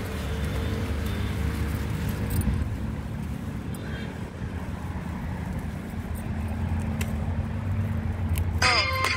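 Steady low rumble of a motor vehicle engine running nearby, with a few light clicks. Near the end a tuneful melody of steady electronic-sounding notes starts.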